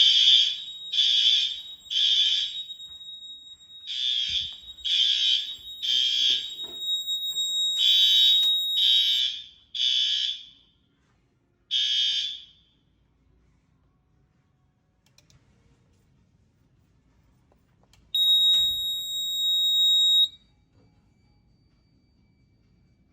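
Fire alarm horns on a Fire-Lite ES-50X system sound a temporal-3 evacuation pattern: three short blasts about a second apart, then a pause, repeating, with a steady high electronic tone beneath the first few groups. The horns stop partway through. Several seconds later a steady high electronic tone sounds alone for about two seconds.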